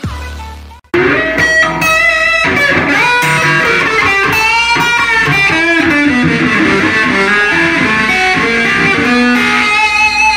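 Squier Stratocaster electric guitar played as a lead line of single notes, with some notes bent up and back down. The intro's electronic music ends just before it, and the guitar comes in about a second in.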